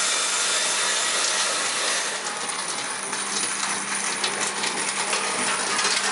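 Material elevator of a screw packaging machine running with a steady hum and hiss, with screws clattering in quick irregular ticks as they tumble off its cleated belt into the hopper, the clatter thickening from about two seconds in.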